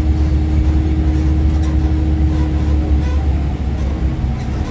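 Steady low rumble of a parked airliner and ground equipment, with a constant hum that drops away about three seconds in.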